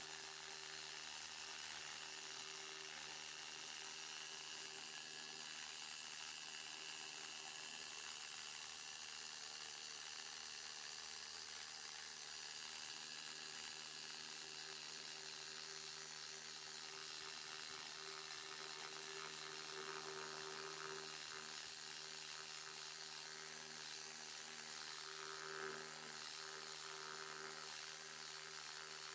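Needle scaler running steadily, its needles hammering rust and scale off a steel plate.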